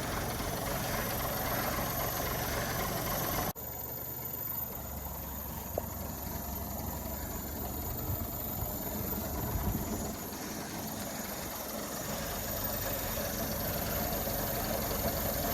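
Diesel engine of a 1957 Volvo TL22 army truck idling steadily, running again after standing unused for twenty years. The sound drops suddenly about three and a half seconds in and then carries on at a lower level.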